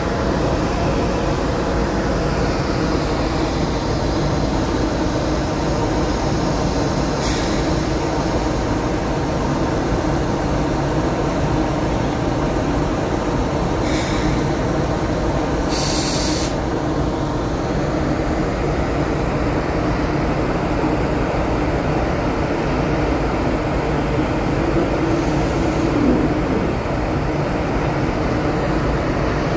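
Steady low hum of heavy machinery, with a few short hisses partway through.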